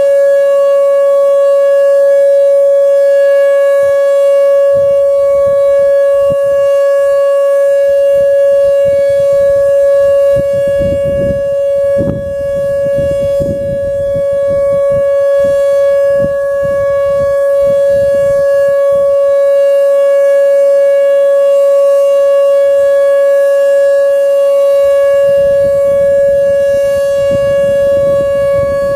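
Whelen WPS-2750 electronic outdoor warning siren sounding its steady Alert tone in a scheduled test: one loud, unwavering high tone. A low rumbling noise comes and goes underneath from about four seconds in.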